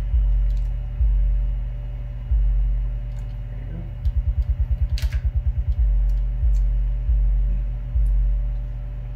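Low 50 Hz test tone from an amplifier power test, stepping up in level in sudden jumps every second or so. About four seconds in it pulses rapidly, about eight times a second, for nearly two seconds. A single sharp click is heard about five seconds in.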